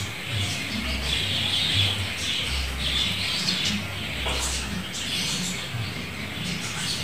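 Red-billed leiothrix (Pekin robin) chirping and calling in repeated short bouts, with low rumbling bumps underneath.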